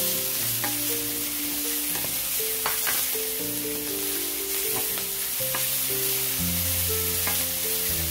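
Chopped bacon sizzling in hot oil in a stainless steel frying pan while a wooden spatula stirs it, with a few short scrapes and taps against the pan. Background music with held, stepping notes plays underneath.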